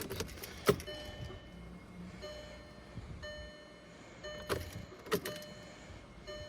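Ignition key of a 2009 VW Tiguan being cycled to prime the fuel system before the first start of its rebuilt TSI engine: a few sharp clicks and a faint electrical tone that sounds in short spells, about once a second.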